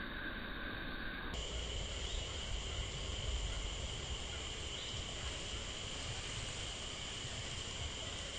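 Steady high-pitched drone of insects over a background hiss. About a second in the drone changes abruptly to a higher pitch.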